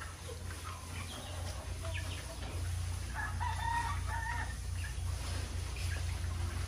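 A rooster crows once, about three seconds in, a held call of about a second and a half, among chickens clucking and scattered short clicks of pigs feeding at a trough. A steady low hum runs underneath.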